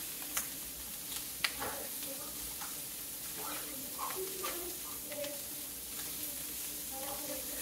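Sausage pieces sizzling steadily in a hot pot, with a utensil clicking and scraping against the pot as they are cut up, the sharpest clicks about half a second and a second and a half in.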